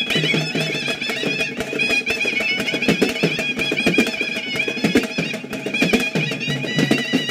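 Tamil folk band music for karakattam: large drums beaten with sticks in a steady rhythm under a high, ornamented wind-instrument melody.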